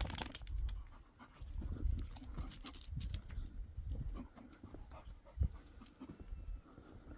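Dog panting as it walks, with scattered clicks and an uneven low rumble.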